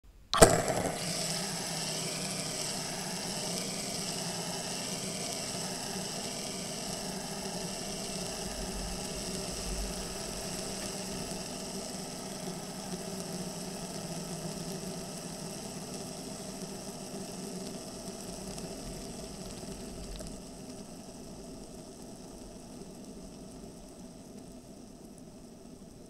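Plastic three-armed fidget spinner flicked with a sharp click near the start, then whirring steadily as it spins and slowly fading as it spins down, with a small drop in level about twenty seconds in.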